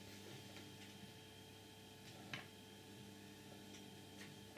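Near silence: room tone with a faint steady hum and a single soft click about two and a half seconds in.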